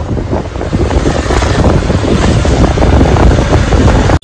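Heavy wind buffeting the microphone on a moving two-wheeler, with a low road and engine rumble underneath.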